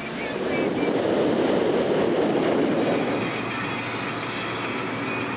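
Road and engine noise heard from inside a moving car, a steady rumble that swells for a couple of seconds about a second in.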